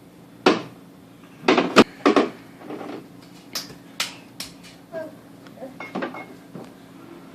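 Food jars and containers being handled in a refrigerator: a run of knocks and clatters as they are set on the shelves, loudest near the start, then lighter clicks and taps.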